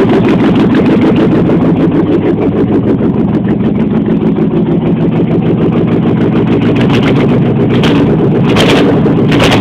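AMC 360 V8 running steadily with the driver's side exhaust manifold off, so the exhaust pulses come straight out of the open head ports: really loud, with a fast rapping beat. Three short bursts of noise sit over it near the end.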